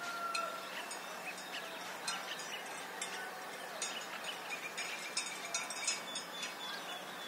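Rural outdoor ambience: small birds chirping in many short calls, with a bell's ringing tone dying away about half a second in.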